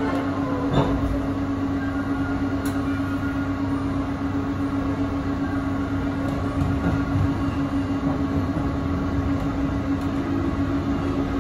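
Inside a 651 series electric train pulling out of a station at low speed: a steady hum over the car's even running noise. There are two light clicks in the first few seconds.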